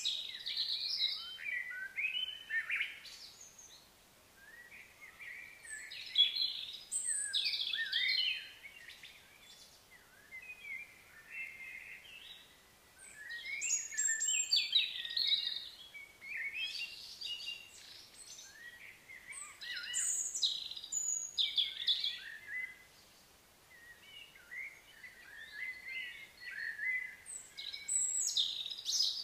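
Songbirds singing: bouts of high, quickly changing chirps and warbles about every five to seven seconds, with quieter pauses between them.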